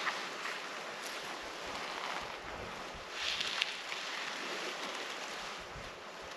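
Steady wind blowing on the microphone, a soft even hiss that swells briefly about three seconds in.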